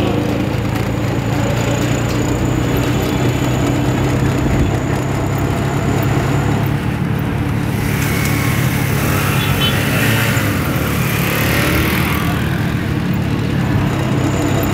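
Vehicle engine running steadily in busy street traffic, heard from a moving vehicle, with a stretch of higher-pitched traffic noise about eight to twelve seconds in.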